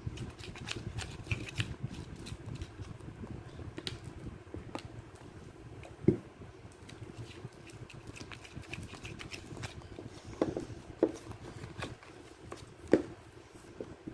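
Slime being stirred in a bowl as the activator is worked in: a scraping, squelching mix with small clicks, and a few sharper knocks of the stirring tool against the bowl, one about six seconds in and several in the last few seconds.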